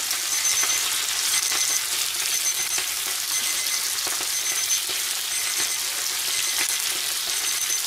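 Steady sizzling hiss of food cooking in pans on a gas stove, with a faint high electronic beep repeating about once a second.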